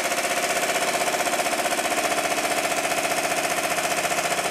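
Stuart triple expansion model marine steam engine running fast on compressed air: a rapid, even train of exhaust beats over a steady hiss.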